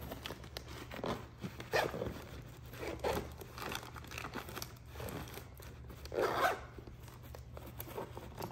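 Zipper on a stroller wagon's insulated cooler bag drawn along in several short rasping strokes, with the fabric and foil-lined lid crinkling as it is handled. The loudest stroke comes about six seconds in.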